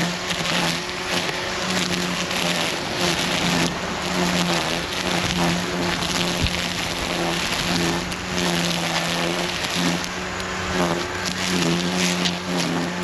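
Echo eForce 56-volt battery-powered lawn tool running steadily under load: an electric motor's steady hum over a rough, hissing cutting noise that wavers slightly in level.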